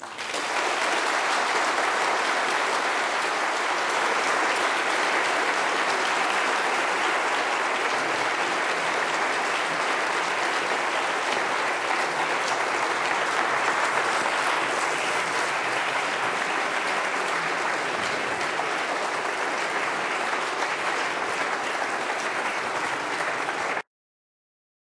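Audience applauding steadily, a dense even clapping that cuts off abruptly about a second before the end.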